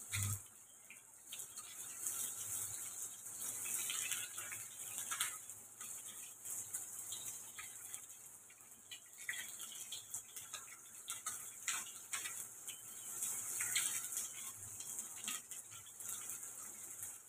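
Onion and capsicum sizzling in hot oil in a frying pan, stirred with a wooden spatula that scrapes and knocks against the pan.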